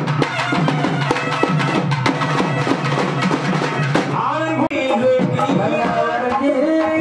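Magudam frame drums beaten fast and loud, with a long wind pipe playing over them. About four and a half seconds in, the drumming breaks for an instant, and a melody line carries on over the renewed beating.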